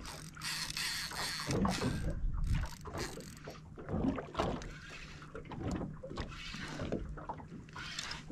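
Water lapping and splashing along a small boat's hull, with irregular knocks and a faint steady low hum underneath.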